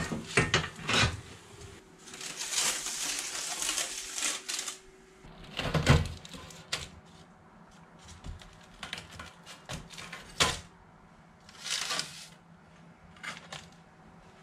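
Freshly baked seeded knäckebröd (Swedish crispbread) being broken by hand: irregular bouts of dry cracking and snapping, with baking paper rustling and a thump about six seconds in.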